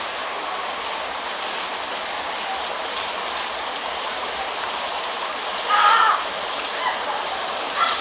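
Heavy rain falling steadily, an even hiss of drops. About six seconds in there is one short, louder pitched sound.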